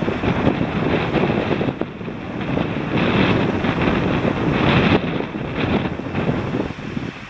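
Wind blowing across the microphone in gusts: a rough rushing noise that swells and eases, strongest about three seconds in and again near five seconds.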